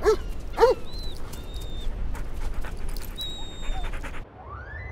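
Dog whimpering: two short whines, each rising and falling in pitch, near the start, followed by faint clicks and a few thin high whistles. The sound cuts off abruptly near the end.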